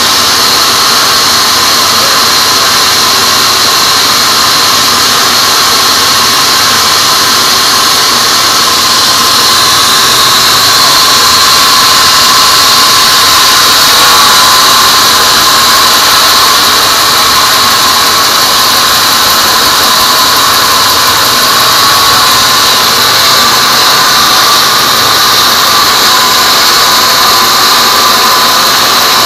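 Sawmill log band saw cutting through a teak log: a loud, steady, high-pitched whine of the blade running through the wood, unbroken throughout.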